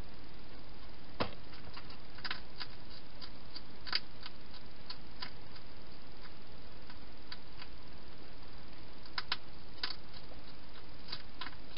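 Hedgehog crunching dry food at a bowl: irregular sharp clicks over a steady hiss, with one louder knock about a second in.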